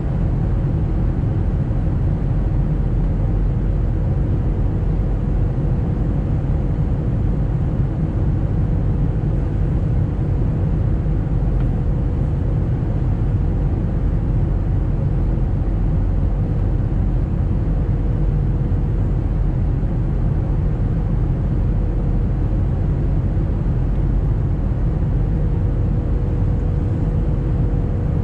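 Jet airliner cabin noise in flight: a steady low rumble of engines and rushing air, with a faint steady hum over it.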